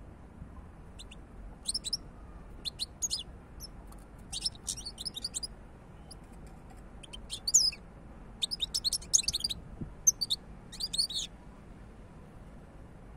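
European goldfinch singing in short bursts of quick, high twittering phrases with brief pauses between them; the song stops near the end.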